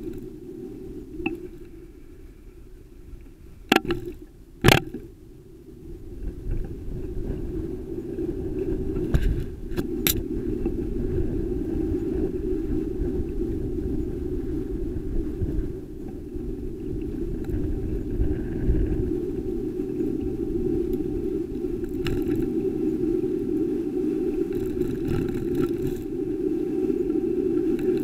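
Muffled, steady rumble of road and wind noise picked up through a bicycle-mounted black-box camera while riding. Sharp knocks come twice about four seconds in and twice more near ten seconds.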